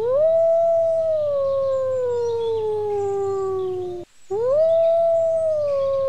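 Gray wolf howling twice. Each howl is one long call that rises quickly and then slides slowly down in pitch for about four seconds. The second howl starts just after four seconds in.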